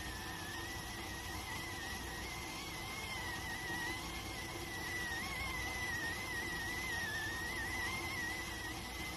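Electric rice cooker's steam whistle sounding continuously at cooking time: one high, slightly wavering whistle over a steady hiss of escaping steam.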